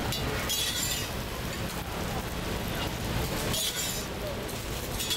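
Metal utensils scraping and clinking on a griddle in three short bursts, about half a second in, around three and a half seconds, and at the end, over a steady background din.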